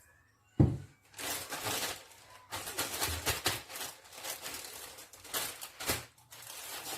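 Packaging crinkling and rustling as it is handled, with many small crackles, after a single thunk about half a second in.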